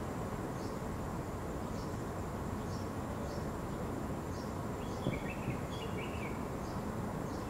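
Steady outdoor background noise, with a faint high chirp repeating about once a second and a short run of quick bird notes about five seconds in.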